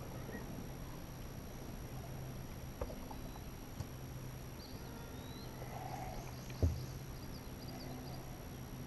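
Quiet outdoor riverside ambience: a steady high-pitched hum, a few faint chirps, and a couple of sharp knocks, the loudest about two-thirds of the way in.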